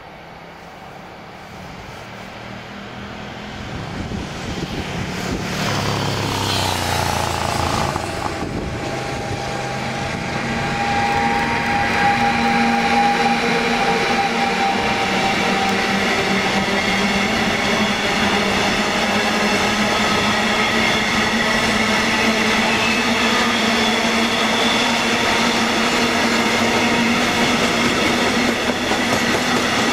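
Container freight train hauled by an electric locomotive passing close by: the locomotive's approach grows louder and its pitch falls as it passes about six to eight seconds in. The long line of container wagons then rolls past, a steady rolling rumble with high whining tones from the wheels.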